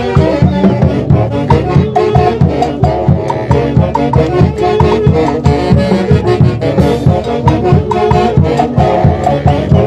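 Loud Latin dance music with brass instruments over a steady, even beat.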